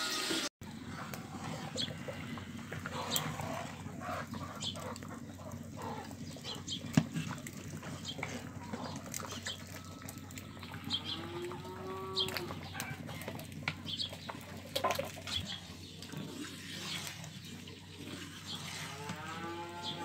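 Chickens calling: two drawn-out, arching hen calls, one about eleven seconds in and another near the end, over scattered small clicks and high chirps.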